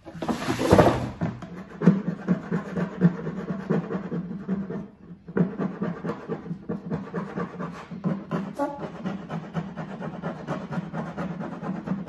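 A wheeled plastic ice chest being swung round on its wheels, then rapid back-and-forth hand scrubbing of its plastic side, a few strokes a second, which roughs up and cleans the surface for painting.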